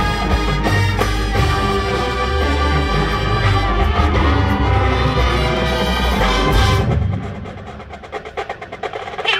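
College marching band playing: the full hornline sustains chords over drums, then a bit under seven seconds in the winds drop away, leaving quieter percussion clicking in an even rhythm, before a loud hit at the end.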